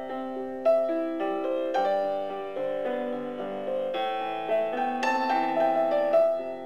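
Background music on a keyboard instrument: a slow melody of struck notes that fade, over changing chords.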